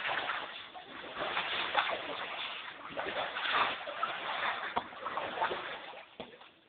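Floodwater about a foot and a half deep splashing and sloshing in irregular bursts, stirred by someone wading through it; the sound fades near the end.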